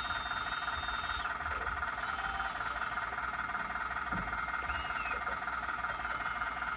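Simulated engine sound from an RC wheel loader's sound module playing through a small built-in speaker, a steady drone at an even level.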